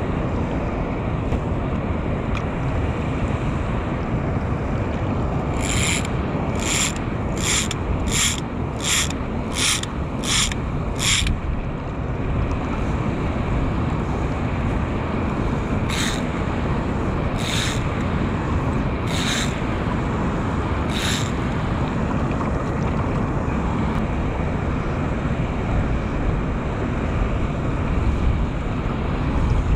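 Steady wind noise on the microphone over running water from a spillway outflow, with a run of short high zips from the fly tackle: eight about every 0.7 s starting about six seconds in, then four more spaced wider apart.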